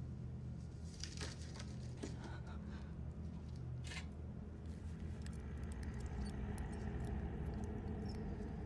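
Small metal surgical instruments handled and clicking, with a few light taps and then a run of tiny ticks, over a low steady hum.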